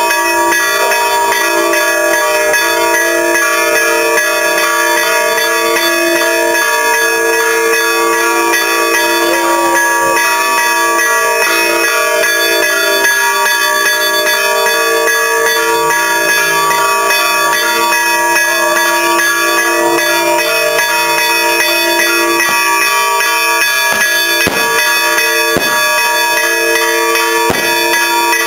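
Church bells ringing continuously in the Easter Resurrection peal, with a few sharp firecracker bangs near the end.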